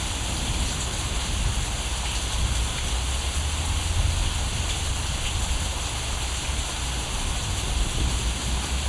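Steady rain-like hiss with a low rumble underneath, even throughout with no separate events.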